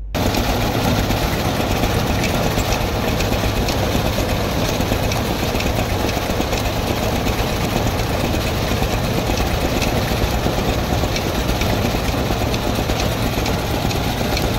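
Groundnut thresher running steadily with a constant machine drone, and a dense rattle of groundnut pods pouring from its chute into a plastic tub.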